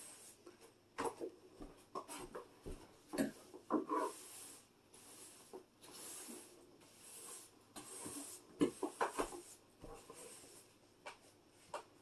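A broom sweeping a hard floor in repeated short brushing strokes, with scattered knocks and bumps.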